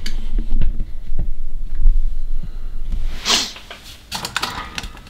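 Handling noise as the camera is picked up and moved on a workbench: low bumps and rumble for the first couple of seconds, a short swish a little after three seconds, then a few light clicks.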